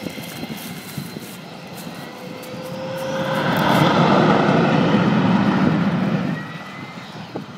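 An aircraft flying past, its engine noise swelling to a peak about four seconds in and fading away again over the next couple of seconds.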